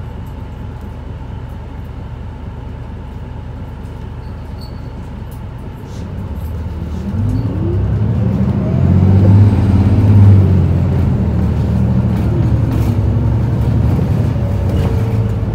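Isuzu Erga city bus's four-cylinder turbodiesel idling while stopped, heard from inside the cabin. About six seconds in it revs up as the bus pulls away, its note rising in pitch and getting louder, then running steadily at speed.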